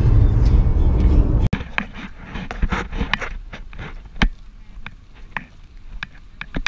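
Steady road and engine rumble inside a moving car, cutting off abruptly about a second and a half in. Then come irregular crunching and scraping footsteps on a rocky dirt path.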